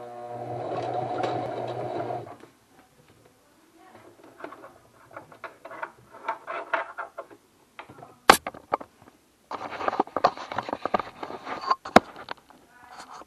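Home sewing machine running steadily for about two seconds. Quieter clicking and handling noises follow. A second, busier stretch of rapid stitching clatter comes later, with two sharp clicks.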